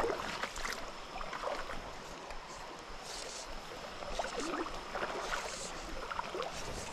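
Shallow stream running steadily over a low riffle, with a few faint short sounds scattered through it.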